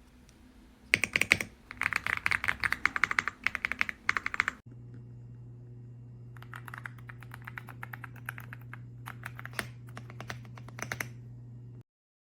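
Fast typing on an EPOMAKER x Aula F65 mechanical keyboard with Graywood V3 switches: quick runs of key clacks. About halfway through, the sound cuts and the typing continues over a steady low hum.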